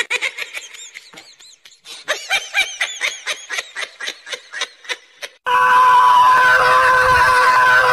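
A high-pitched voice giving a rapid run of short chirping giggles, about five a second, then a loud steady held tone from about halfway through.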